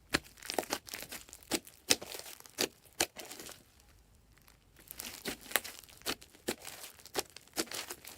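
Slime being squished and stretched by hand, giving sharp, irregular clicks and pops, with a pause of about a second and a half in the middle.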